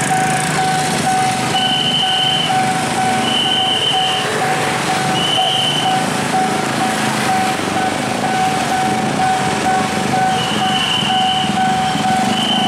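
Railroad crossing warning bell ringing in a rapid, even on-off pattern, with a higher tone sounding in short stretches every second or two. Under it, a passenger train rumbles on the rails as it moves away.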